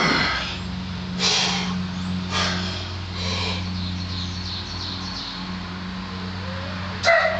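Loud, heavy breaths about a second apart from a weightlifter between box-squat reps under a loaded barbell, over a steady low hum. A short, loud sound comes near the end.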